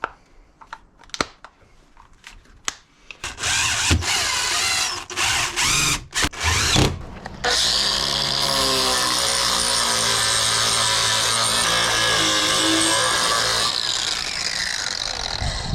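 Milwaukee 18V cordless angle grinder, its battery prongs just replaced, clicking as it is handled, then its motor switched on in several short bursts. It then runs steadily for about six seconds and spins down near the end, the whine falling in pitch.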